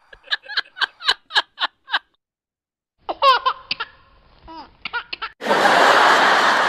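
Laughter sound effects played one after another: a single person's rhythmic laugh of about eight quick pulses, then a second laugh with sliding pitch, then a large audience laughing together that starts suddenly about five seconds in.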